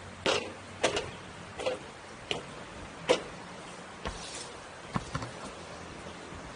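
Footsteps at a walking pace, a step about every two-thirds of a second, over a steady outdoor background.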